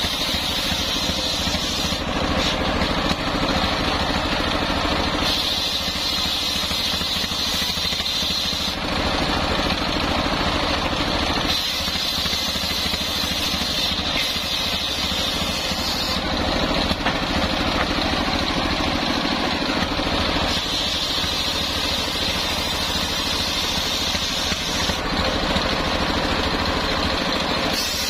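Stationary diesel engine running steadily, belt-driving a circular saw blade that rips coconut palm wood. The high cutting hiss of the blade rises and eases in stretches of a few seconds over the constant engine drone.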